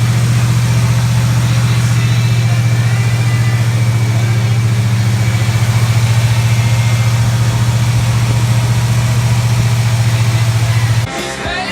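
Chevrolet crate 350 small-block V8 in a 1979 Camaro Z28 idling steadily, a loud even low exhaust pulse. It cuts off abruptly near the end and music comes in.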